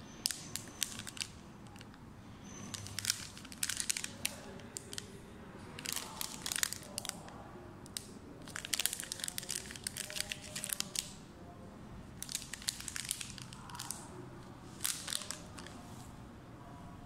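Clear plastic flow-wrap bag holding a syringe crinkling and crackling as it is handled, in about six separate bouts of crackling.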